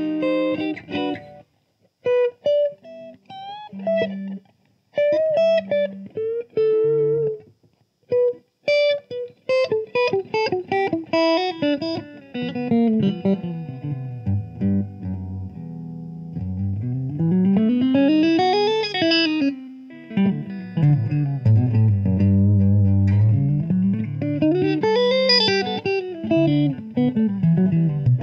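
1980 Gibson Les Paul Custom electric guitar played through a Fender combo amplifier. It starts with a few spaced single notes and short pauses, moves into quicker runs of notes, then twice sweeps in a long glide down in pitch and back up.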